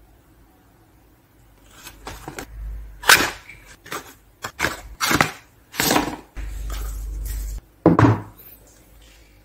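Watch packaging being handled and opened: a run of knocks, taps and rustles over several seconds, with a low rumble for about a second just past the middle.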